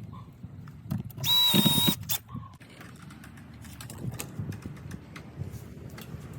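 Cordless power drill running briefly, about a second in, for roughly half a second with a steady whine. Scattered clicks and knocks of handling screen frames and hardware follow.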